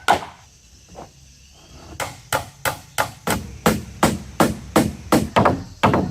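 Hammer blows on wood, as in nailing boat planks: one blow, a pause of about two seconds with a faint tap, then steady blows about three a second.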